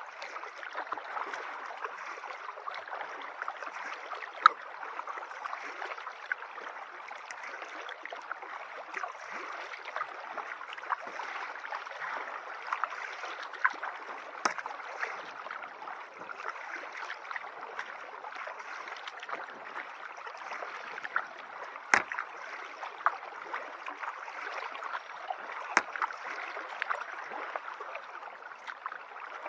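Water gurgling and trickling against a kayak's hull, full of small drips and splashes, with a few sharp knocks.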